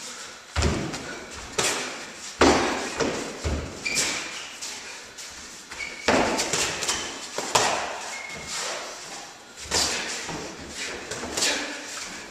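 Boxing gloves slapping and thudding at irregular moments as two boxers spar, with feet stamping and shuffling on the wooden ring floor.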